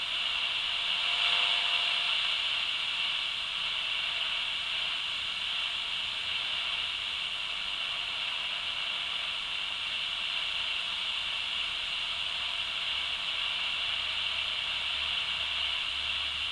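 Cheap walkie-talkie's superregenerative receiver hissing steadily through its small speaker, with no voice coming through. The hiss sits high in pitch.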